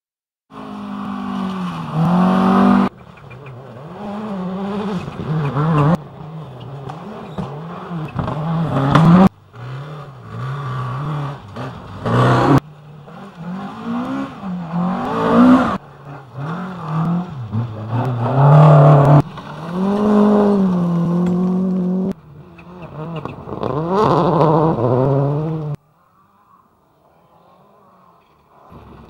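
Rally car engines revving hard, the revs climbing and dropping over and over as the cars are driven along gravel stages, among them Ford Escort Mk2s. The sound comes in a string of short clips that cut abruptly about every three seconds, and goes much quieter for the last few seconds.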